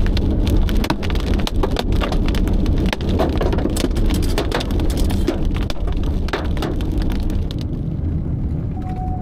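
Raindrops striking in a dense, irregular patter over a steady low rumble, the drops thinning out and dying away near the end.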